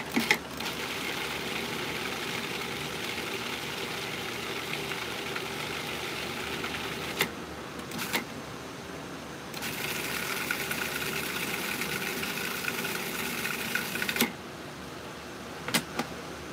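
Food processor motor running as it blends avocados with water into a wet mash: a run of about seven seconds, a short pause with a couple of clicks, then a second run of about four and a half seconds with a steadier whine that cuts off. A few more clicks of the plastic lid follow near the end.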